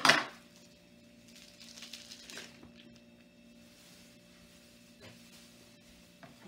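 A sudden thump as a tube of ground turkey is dropped into a large stainless steel mixing bowl of shredded vegetables, followed by quieter handling noises and a faint steady hum.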